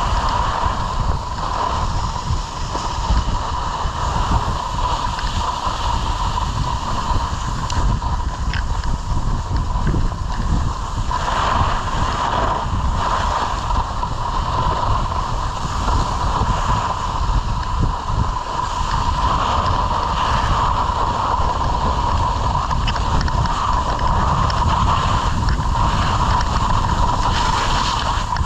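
Wind buffeting the microphone and skis scraping and sliding over packed snow during a downhill ski run, with a steady whine underneath throughout.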